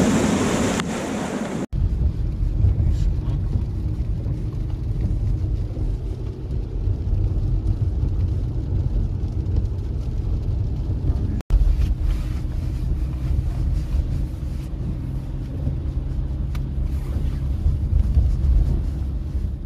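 Waves breaking and washing over a rocky shore for about a second and a half. Then a cut to the steady low rumble of a car's engine and tyres heard from inside the cabin as it drives, the rumble breaking off for an instant about halfway through.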